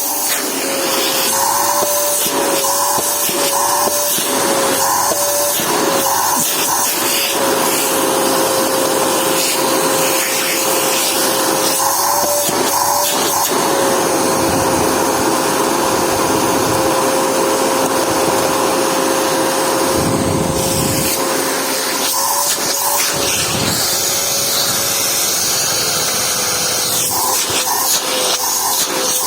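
Unbranded FJ-188 600 W vacuum cleaner running, a steady rushing of air under a high motor whine. The whine wavers in pitch now and then as the load on the motor changes. Short knocks and rustles are frequent in the first half.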